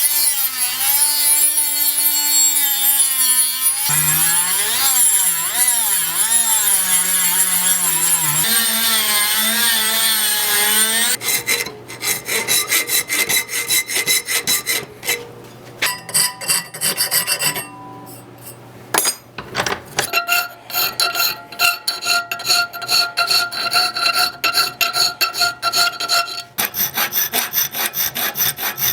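A power tool working metal, its whine wavering in pitch as it is loaded. About eleven seconds in it gives way to rapid, rhythmic scraping strokes with short pauses between runs.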